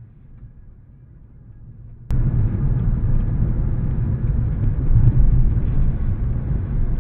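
Steady car engine and road rumble heard from inside a moving car, picked up by a budget dashcam's built-in microphone, so it sounds muffled and thin. About two seconds in, it jumps suddenly from faint to loud.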